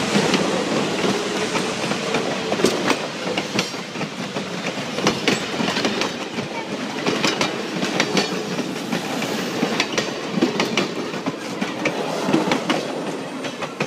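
Passenger coaches rolling past close by: a steady rumble of steel wheels on rail with sharp, irregular clicks as the wheels pass over the rail joints.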